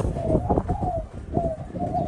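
Dove cooing: a quick run of short repeated notes.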